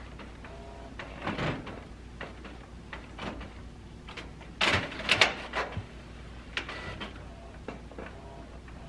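Canon inkjet printer pulling a sheet in from its rear feed tray to print: a run of short mechanical whirs and clicks, loudest about five seconds in.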